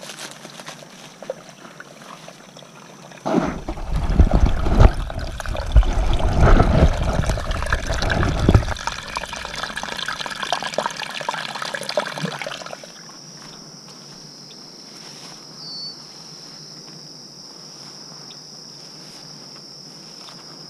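Water trickling from a small natural spring seep, with a steady high insect drone over it. From about three seconds in, the water sound turns louder and rushing, with a low rumble, for several seconds, then fades back to the insect drone.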